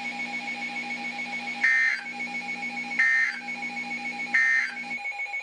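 Three short bursts of Emergency Alert System digital data tones, the end-of-message code that closes the alert. Each burst is a warbling buzz about a third of a second long, about 1.4 s apart, over a low steady hum that cuts off shortly after the last burst.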